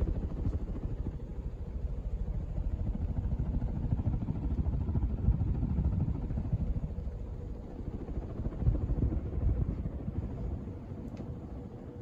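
FASCO Charleston ceiling fan running on high: the blades push air past the microphone in a low, gusty rush, over a faint steady motor hum, a small hum that is normal for this fan. The rush eases off a little near the end.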